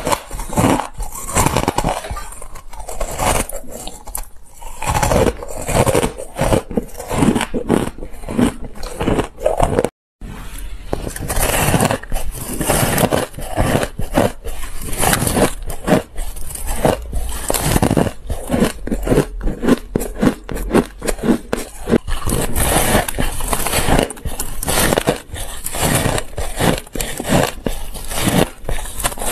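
Crushed ice being bitten and crunched in the mouth close to the microphone: a fast, continuous run of crisp crunches. First snow-like shaved ice, then, after a brief cut-out about ten seconds in, a harder compacted block of crushed ice.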